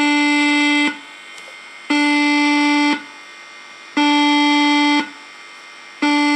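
Electronic sound-effect box sounding a loud buzzy alarm tone through its speaker: four one-second beeps, one every two seconds, reading just over 100 dB on a decibel meter.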